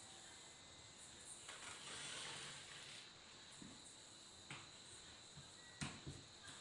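Near silence: room tone, with a few faint knocks near the end.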